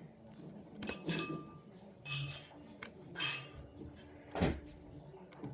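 Small metal repair tools clinking and scraping against an iPhone 5c during disassembly: about five light clinks with a short ring, and a duller knock a little past four seconds in.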